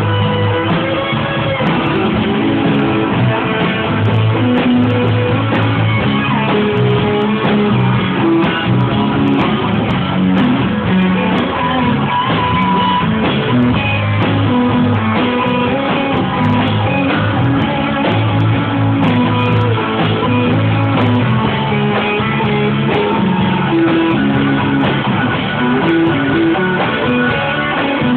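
A rock band playing live in a small rehearsal room: electric guitars over a moving bass line, with drums keeping time.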